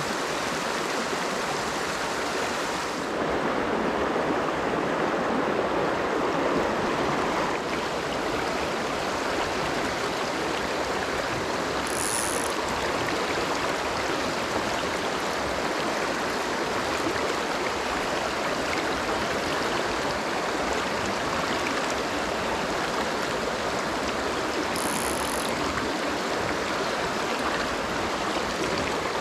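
Mountain stream water rushing steadily, a little louder a few seconds in. Two brief, very high-pitched sounds come through it, about thirteen seconds apart.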